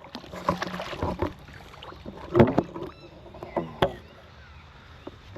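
Irregular splashes and knocks from a small carp just landed on a fishing rod at the water's edge, loudest about two and a half seconds in.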